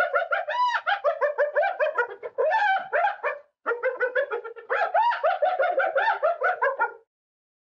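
Spotted hyena giggling: a fast run of short, high, rising-and-falling yelping notes, about five or six a second, with a brief break about three and a half seconds in, stopping near the end.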